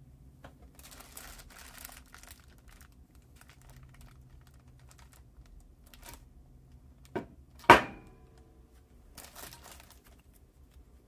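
Handling noises from a new carburetor: light rustling, then a small click and a sharp metallic knock half a second apart, the knock ringing briefly.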